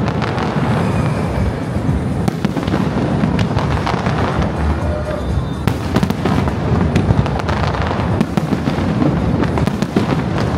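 Aerial fireworks going off in a rapid barrage: a continuous deep rumble of shell bursts with many sharp cracks throughout.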